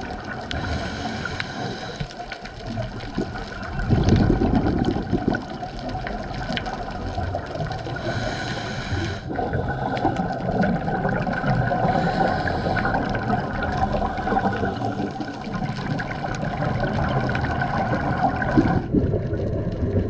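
Underwater sound of a scuba dive: the bubbles of a diver's breathing gurgling, with brief hissing patches and a louder surge of bubbles about four seconds in, over a steady hum.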